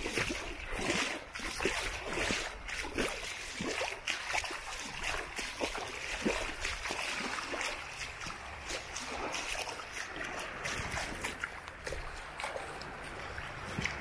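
Water splashing and trickling in quick, irregular splashes that settle into a steadier hiss about halfway through.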